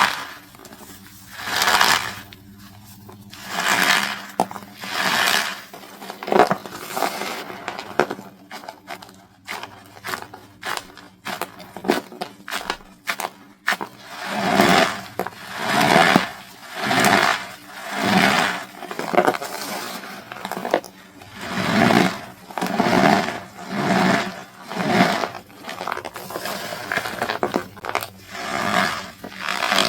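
Compacted cornstarch bricks being crushed and squeezed by hand, a run of crunches. They come about one every second or two at first, then faster and more regular from about halfway through.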